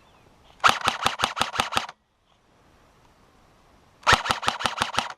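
Airsoft gun firing two rapid strings of shots at about seven a second, one starting just under a second in and the other near the end.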